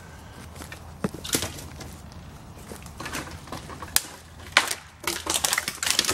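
Dry dead twigs and leaf litter crackling and snapping under footsteps: scattered sharp cracks that come thicker near the end.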